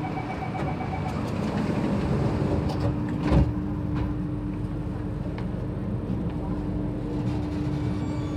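Door-closing warning of an Alstom Metropolitan C830C train: rapid beeping for about a second, then the sliding door shuts with a sharp knock about three seconds in, over the steady hum of the standing train.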